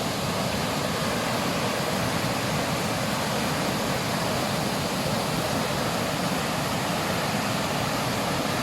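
Steady rushing of flowing water, an even, unbroken roar.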